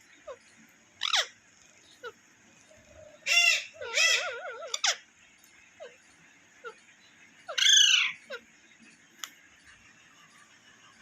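Pet parrot calling in short, sharp screeches: one about a second in, a pair around three and a half to four seconds that runs into a warbling, wavering call, and a loud arching screech near eight seconds, with a few faint clicks between.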